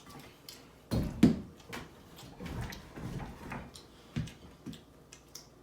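Close-up eating sounds of a man eating a double cheeseburger: chewing with scattered short lip smacks and clicks, and a few heavier low thumps about a second in.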